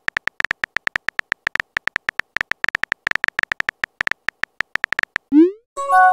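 Phone keyboard key-press sounds from a texting app: rapid short blips, about eight a second, as a text message is typed out. Near the end a quick rising pop and a short chime mark the message being sent.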